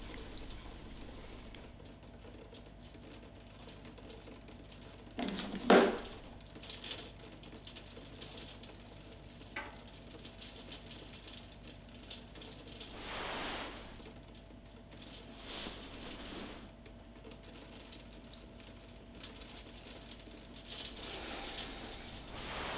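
Quiet room tone with scattered light taps and one sharp knock about five and a half seconds in. Later come a few slow, breathy exhales from a person lying still.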